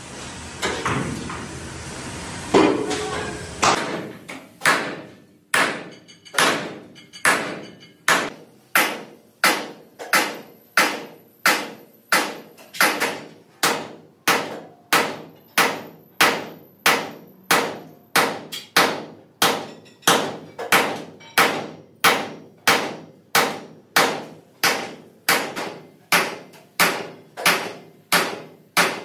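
Sledgehammer blows on a hand-held chisel, cutting a thick steel sheet along a marked line: sharp metallic clangs with a short ring. They come in a steady rhythm of a little more than one a second, beginning about four seconds in.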